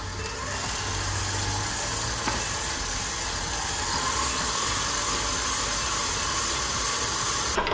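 Electric bowl-lift stand mixer running with its flat paddle, a steady motor whir as it beats an egg into creamed butter and sugar. The whir cuts off near the end.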